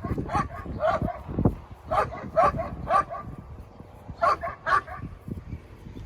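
A dog barking and yapping in short bunched barks, which pause briefly a little past the middle and then resume.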